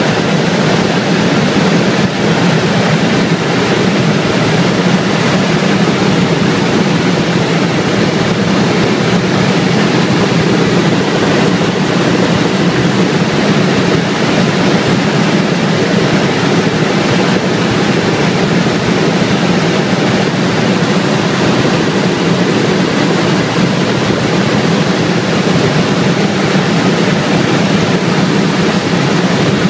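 Cabin noise of a Bell LongRanger helicopter in flight: a loud, steady drone from the rotor and turbine engine that holds even and unbroken throughout, heaviest in its low hum.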